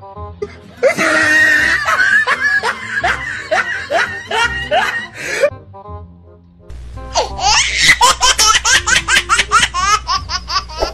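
Loud, hearty laughter in two long bouts of repeated ha-ha pulses: the first starts about a second in, and after a short pause a second one quickens toward the end. Background music plays faintly underneath.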